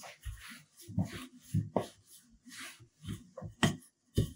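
Wooden rolling pin rolling bao bun dough on a floured granite worktop: a scattering of soft, irregular knocks and rolling sounds, the loudest near the end.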